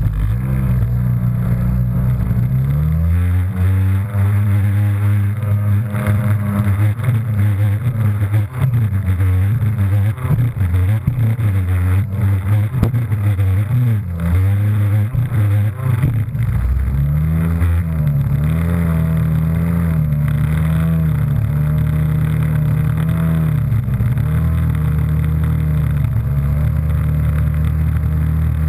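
Jet ski engine running, its pitch rising and falling as the throttle is worked, with water rushing and splashing. From about seventeen seconds in it holds a steadier pitch.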